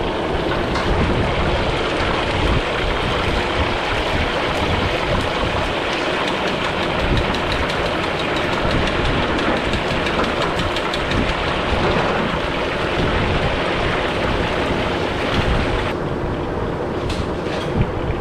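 A whole fish deep-frying in a wok of hot oil, sizzling and crackling steadily with a low rumble beneath. The bright crackle thins out near the end as the bubbling in the oil settles.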